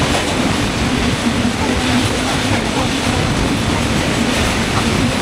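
Broad-gauge passenger train running at speed, heard from a carriage window: a loud, steady rumble of the wheels on the rails.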